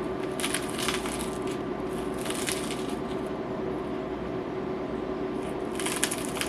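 A few faint crunching, squishing sounds from food topped with pickles, over a steady hum.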